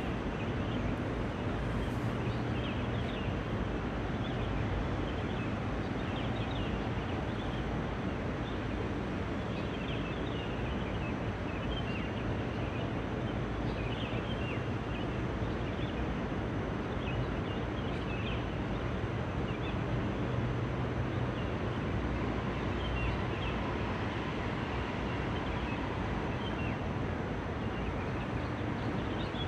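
Steady distant city ambience: a low, even rumble of traffic with faint short bird chirps scattered through it.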